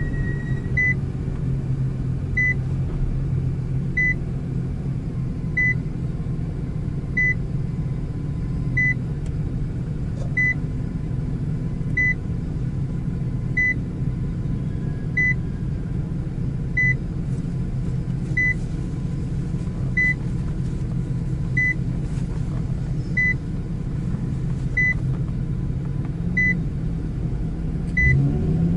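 2013 Nissan GT-R R35's twin-turbo 3.8-litre V6 idling, heard from inside the cabin as a steady low rumble, with a short high electronic beep repeating about every one and a half seconds. Near the end the engine starts to rev up.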